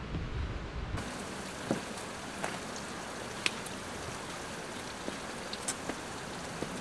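Steady hiss of water with scattered drops ticking, in woods wet from a rain shower. About a second in, the sound shifts and loses its low rumble.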